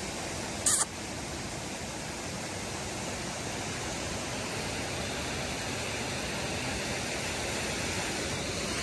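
Steady rush of a mountain stream and a small waterfall, with a brief hissing noise about a second in.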